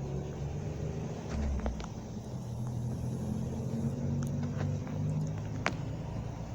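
A motor vehicle's engine running at low revs, a steady low rumble, with a few faint clicks over it.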